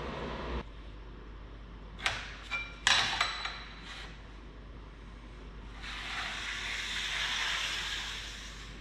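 Metal speed square clinking down onto a granite countertop several times, each contact ringing briefly. Then a scratchy stroke of about two seconds as a tool is drawn along the square across a luxury vinyl plank.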